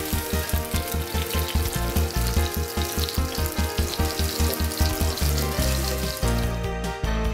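Chicken breasts sizzling as they fry in oil in a pan, over background music with a steady beat. The sizzle stops near the end while the music carries on.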